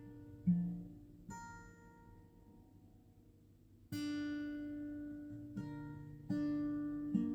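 Slow acoustic guitar music: single plucked notes and chords that ring on, with a near pause before a louder chord about four seconds in.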